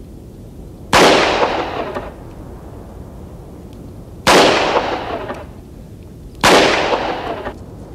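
Three revolver shots: one about a second in, one at about four seconds, and one at about six and a half seconds. Each shot has an echo trailing off for about a second.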